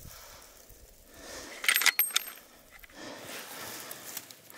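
Bolt-action rifle being handled: a quick cluster of sharp metallic clicks and clinks, the loudest a little under two seconds in, against a quiet outdoor background.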